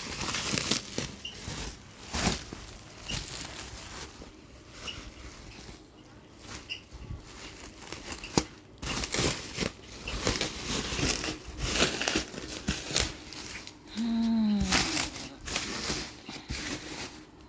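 Plastic packaging wrap crinkling and rustling in irregular bursts as it is handled and pulled off a parcel, with a short falling voice-like hum about 14 seconds in.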